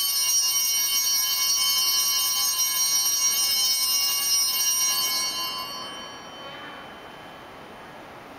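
Altar bells rung at the elevation of the chalice: several high bell tones ringing together, held for about five seconds and then fading away by about six and a half seconds in.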